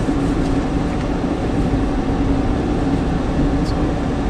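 Steady road noise inside a moving car's cabin: a constant hum and rumble from the engine and tyres, with an even hiss over it.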